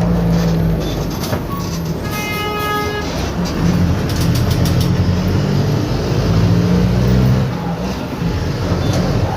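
Mercedes-Benz OF-1721 bus's diesel engine running under way with a holed exhaust, its low drone swelling a few seconds in and easing off near the end. A short pitched tone, like a horn or buzzer, sounds about two seconds in.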